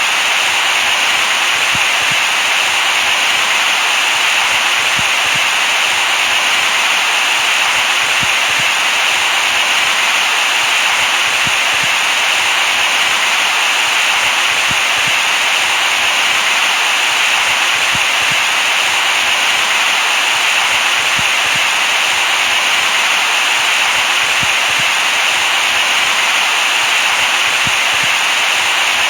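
Steady white noise: an even, unchanging hiss, brightest in the upper range.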